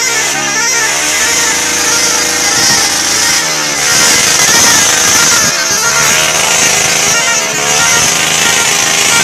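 Musical multi-tone 'telolet' vehicle horn, its warbling up-and-down tune coming back in short spells about every two seconds. Between spells it holds a steady chord. Engine and street noise with a constant hiss runs underneath.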